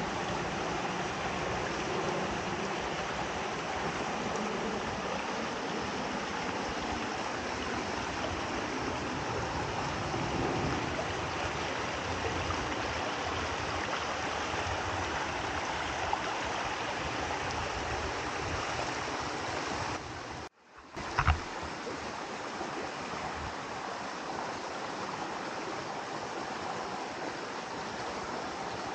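Shallow creek water flowing and trickling over rocks, a steady rushing hiss. About two-thirds of the way through, the sound drops out for half a second and comes back with a brief knock.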